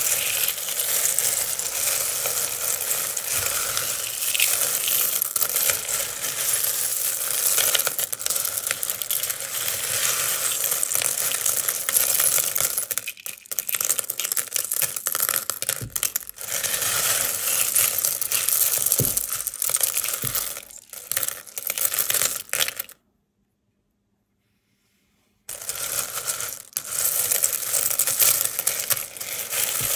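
A large heap of sewing buttons being raked, scooped and poured back by hand: a dense, continuous clatter of buttons clicking against one another. About three-quarters of the way through the sound cuts out completely for two or three seconds, then the clattering resumes.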